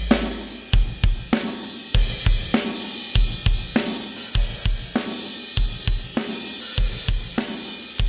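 Recorded drum kit playing a steady beat of kick, snare, hi-hat and cymbals. It runs through the Behringer X32's Fair Compressor, an emulation of the Fairchild 670 tube compressor, in mid/side mode, with the middle being compressed harder to widen the stereo spread.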